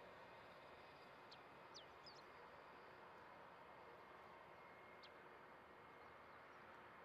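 Faint, distant steady whine of an Airbus A320's jet engines at low power while it taxis, heard as a soft hiss with thin steady tones. Short high bird chirps come three times within the first couple of seconds and once more about five seconds in.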